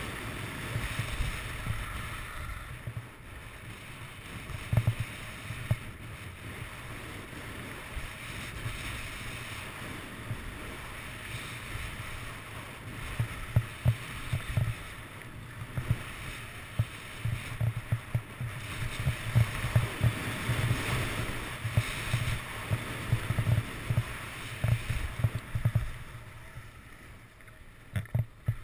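Skis hissing and scraping over snow on a downhill run, the rushing swelling and fading with each turn. Wind buffets the camera microphone, adding an uneven low rumble with frequent sudden thumps.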